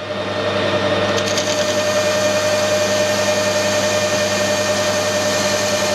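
Metal lathe running steadily under power, a motor-and-gearing hum with a steady whine, as it turns a cut in metal that throws long stringy chips.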